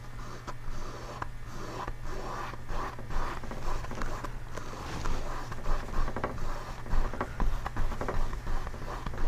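Small paintbrush stroking and dabbing wet oil paint onto a canvas: a run of short, irregular scratchy brush strokes.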